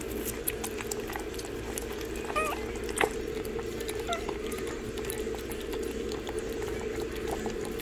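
Shih Tzu puppies lapping and smacking soft, soaked puppy food from a bowl: a steady run of quick wet clicks over a steady hum. A brief high squeak from a puppy comes about two and a half seconds in, and a sharper click shortly after.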